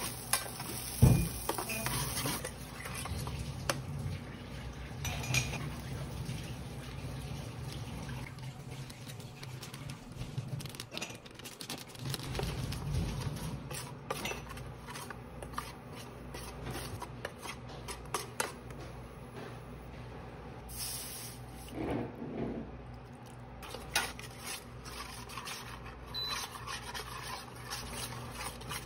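Metal spoon scraping and clinking against a stainless steel frying pan while stirring butter and flour into a roux, and then into a gravy. The clinks are scattered and irregular, with one sharp knock about a second in.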